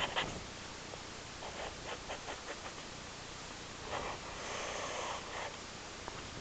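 Sharpie marker scratching on paper in short strokes, with a longer run of strokes about four seconds in.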